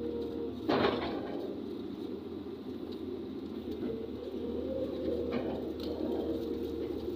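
LiuGong 920D excavator's diesel engine running steadily under load with a hydraulic whine, heard from inside the cab. A sudden sharp knock comes under a second in.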